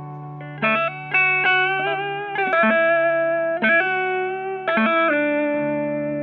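Background music: a melody of separate notes, each starting sharply, over a held low note.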